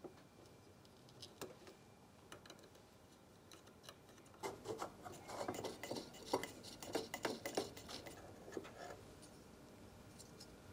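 Light clicking and rattling of hard plastic and small metal parts: a 3D printer's lower Z-post bracket and its screws being worked loose with a hex key and pulled off by hand. A few scattered clicks come at first, then a denser run of clicks and rattles from about four to nine seconds in.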